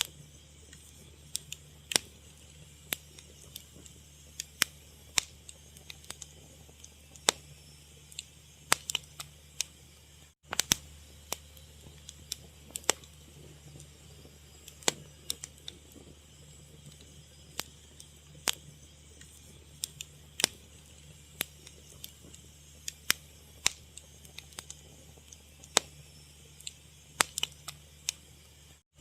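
Fire crackling, with irregular sharp pops and snaps over a steady low hum. The sound cuts out for a moment about ten seconds in.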